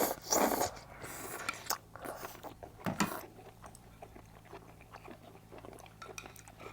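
Close-miked eating: chewing and biting food, with small clicks of utensils against a dish. There are two louder rustling bursts in the first second.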